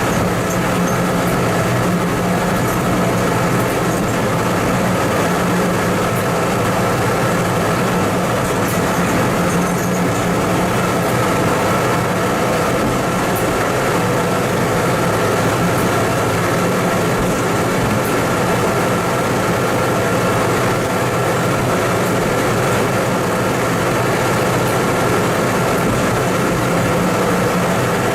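Diesel engine of a TMC200 snow-removal rail motor car running steadily, with a steady higher whine above the engine note.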